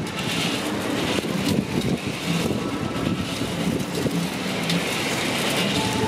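Motor-driven street chestnut roaster running, its drum turning chestnuts through hot black pebbles with a steady, dense rattle and rumble.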